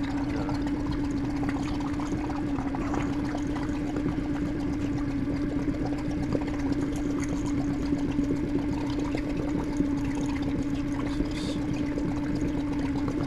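A small electric motor on the boat humming steadily at one pitch, with water pouring and splashing.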